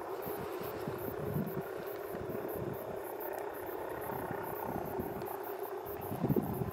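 Distant helicopter running, a steady hum with an irregular low flutter from its rotor. Insects chirr faintly and rhythmically above it, about four to five pulses a second.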